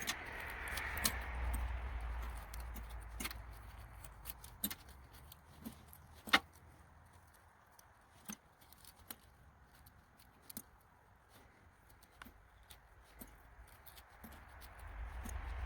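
Scattered sharp metallic clicks and clinks as nails and tacks snap onto a strong magnet and knock against each other, the loudest about six seconds in. A low rumble sits under the clicks near the start and again near the end.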